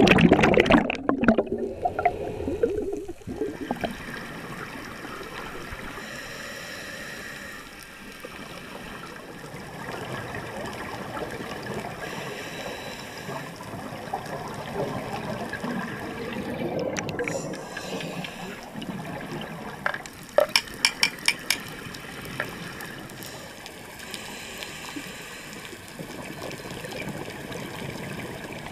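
Underwater sound through a camera housing: loud splashing and rushing bubbles for the first few seconds as it goes under, then a steady muffled underwater hiss with scuba divers' exhaled bubbles, and a quick run of sharp pops about twenty seconds in.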